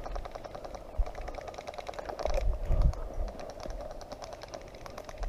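Faint, rapid crackling and clicking of dry twigs and brush underfoot as a player creeps through scrub, with a few soft footfalls.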